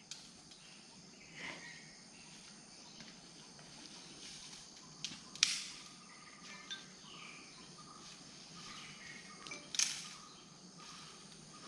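Quiet outdoor forest ambience: a faint steady high-pitched insect hum with a few faint bird chirps. A brief sharp noise comes about five and a half seconds in, and another near the end.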